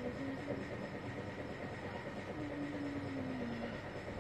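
A steady mechanical rumble, with a faint low tone that slides slowly downward from about halfway through.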